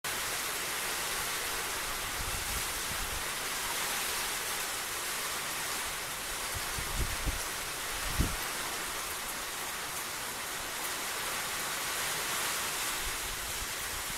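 Steady heavy rain falling on grass and wet ground, an even hiss. A few brief low thumps sound about halfway through.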